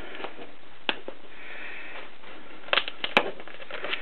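Plastic cutting mat being flexed and handled, with a few sharp clicks and crackles, a cluster of them about three seconds in, as cut gasket material is peeled off the mat's sticky surface.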